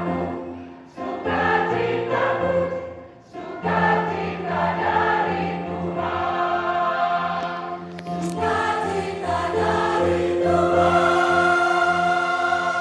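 Church choir singing Christian music in several voices, with short breaks between phrases in the first few seconds, then long held notes.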